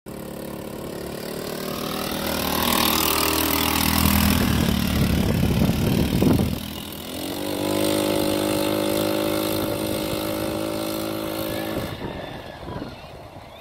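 TaoTao Arrow 200 go kart's single-cylinder four-stroke engine (a GY6-clone 169cc) running under throttle, rising in pitch over the first few seconds and loudest about halfway through. It then holds a steady pitch and fades toward the end as the kart drives off.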